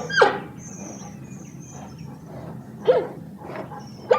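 A panda calling: short loud calls, each falling in pitch. One comes just after the start, another about three seconds in, and a third at the very end.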